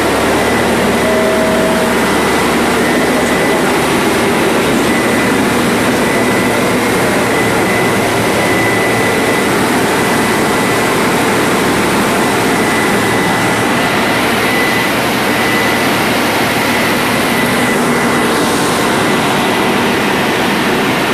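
Caterpillar 3406 inline-six diesel engine of a 400 kVA generator set running steadily during its warm-up run, a loud even drone with a thin steady high whine over it.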